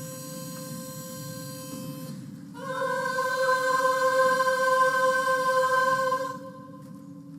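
Barbershop pitch pipe sounding one steady note for about three and a half seconds, starting about two and a half seconds in, giving the chorus its starting pitch before the next song.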